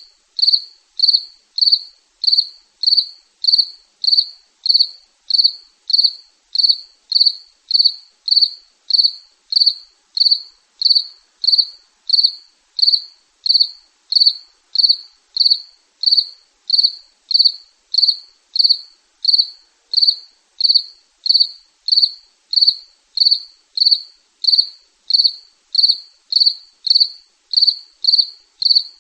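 A cricket chirping in a steady, even rhythm: short, high chirps repeating somewhat under two times a second.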